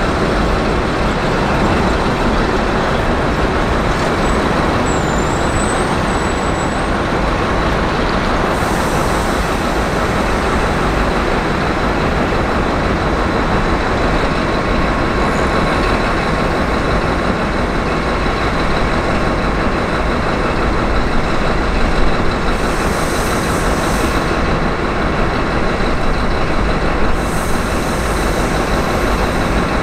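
Steady, loud rumbling of rail traffic, with three short hisses of air about nine seconds in, some twenty-two seconds in and near the end.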